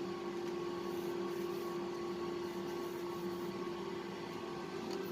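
Trotec Speedy 300 laser engraver running: a steady machine hum with one constant tone, and faint high whirring that comes and goes a few times.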